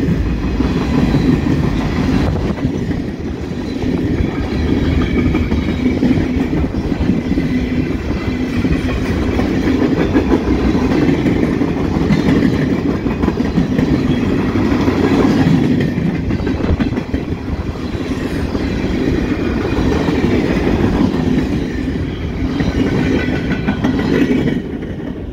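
Freight train's cars rolling past close by, steel wheels on steel rails making a loud, steady rumble with faint high ringing tones above it. The sound drops near the end as the last car goes by.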